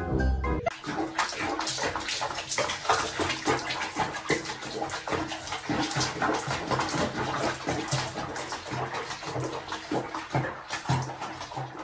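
Bathwater sloshing and splashing around a cat sitting in a filled tub, an irregular wet noise without pauses.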